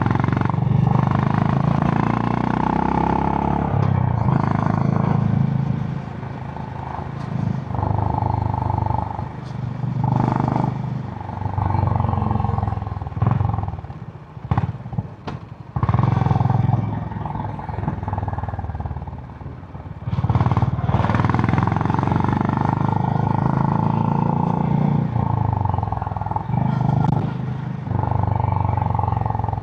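Honda GB350's 348 cc air-cooled single-cylinder engine through its stock exhaust while riding, the note rising and falling with the throttle. It eases off for several seconds in the middle, with a few sharp clicks, then pulls strongly again.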